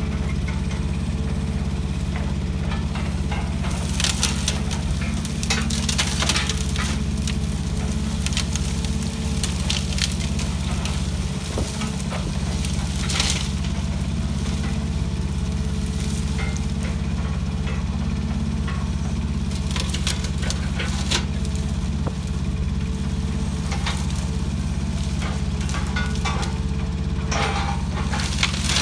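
A truck-mounted grapple crane's engine running with a steady low drone, with several bursts of crackling and snapping as brush and branches are gripped and crushed.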